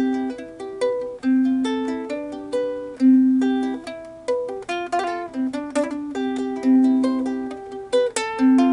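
Ukulele playing an instrumental break: a plucked melody over quick strummed chords.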